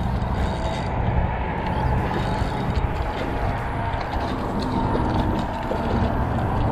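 Spinning reel being cranked to bring in a small hooked redfish, over a steady rumble of wind on the microphone.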